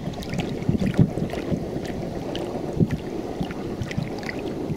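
Muddy floodwater lapping and sloshing, with scattered small splashes and wind buffeting the microphone as a steady low rush.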